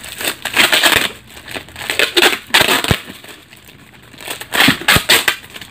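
Heavy packing-tape and plastic wrapping crinkling and rustling as it is handled and pulled open by hand, in three uneven spells.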